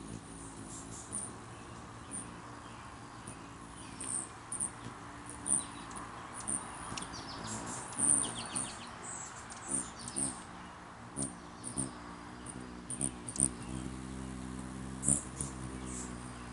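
Rufous hummingbirds hovering close, making many short, high, sharp chip calls over the low buzzing hum of their wingbeats, which swells and pulses as they dart in and out.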